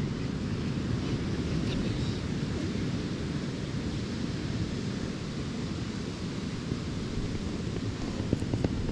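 Steady rush of wind buffeting the microphone over the wash of ocean surf, with a few faint clicks near the end.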